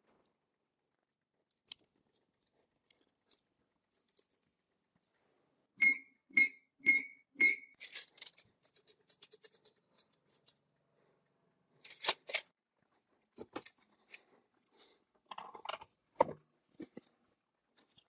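Metal handling sounds while a steel tape measure is laid along a ball screw with its ball nut: four sharp, ringing metallic clicks about half a second apart, a quick rattle of fast ticks, then scattered scrapes and knocks.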